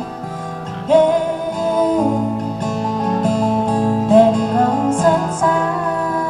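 Acoustic guitar strummed with a woman singing long held notes, as live music.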